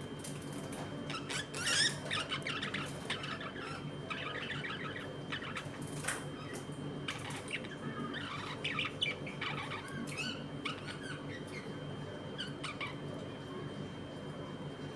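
A flock of budgerigars chirping and chattering: many short, overlapping chirps and warbles, with a few sharper calls.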